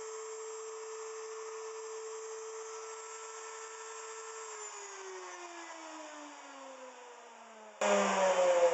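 Router motor running at a steady high whine, then switched off about four and a half seconds in and spinning down, its pitch falling. Near the end a much louder whirring starts abruptly, also falling in pitch.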